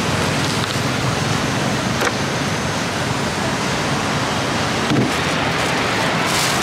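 Steady noise of road traffic, with a short click about two seconds in and a soft knock about five seconds in.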